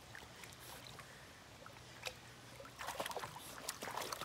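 Dog wading through a shallow stream: faint water sounds at first, then from about three seconds in a quick run of splashes and sloshes as its legs move through the water.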